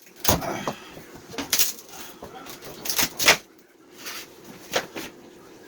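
Irregular knocks and scrapes of wooden door framing being pulled out by hand and tool, about seven sharp strikes with the loudest pair about three seconds in.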